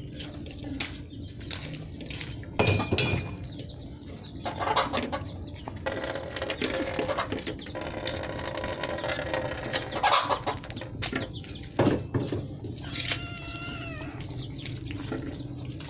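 Puppies eating rice from a metal basin, with short knocks and clicks of muzzles and paws against the metal. Water is poured into the basin around the middle. Drawn-out animal calls come in the middle and again near the end.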